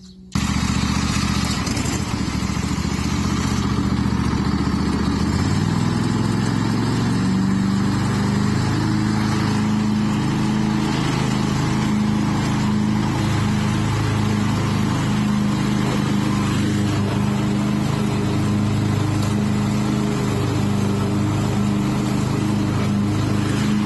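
Craftsman riding lawn mower's engine running while mowing, rising in pitch about six to eight seconds in and then holding steady.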